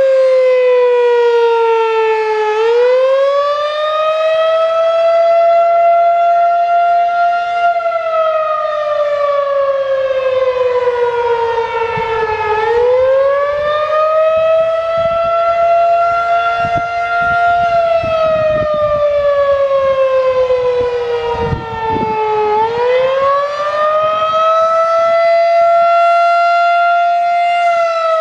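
Federal Signal 2001-SRN electromechanical warning siren sounding the attack signal: a loud wail that climbs quickly, keeps rising slowly to its peak, then slides back down. The cycle repeats about every ten seconds.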